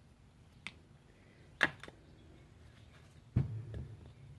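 Starter-motor parts knocking together as they are handled and fitted: a faint tick, a sharp click about a second and a half in, then a duller knock with a brief rattle about three and a half seconds in.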